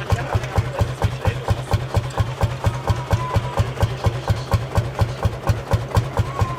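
Lanz Bulldog tractor's single-cylinder two-stroke hot-bulb engine idling with a steady, rapid thumping beat.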